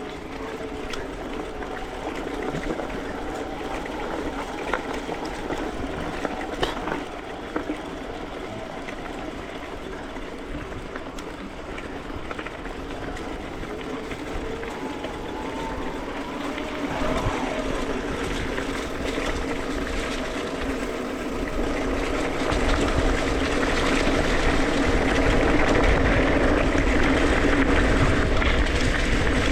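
Mountain bike riding a dirt singletrack trail: steady rolling and rattling noise from the tyres and bike over the ground, with scattered clicks. It grows louder and heavier about two-thirds of the way in.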